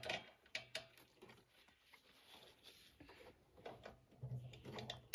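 A few light clicks of hand tools on bolts in the first second, then faint handling noise.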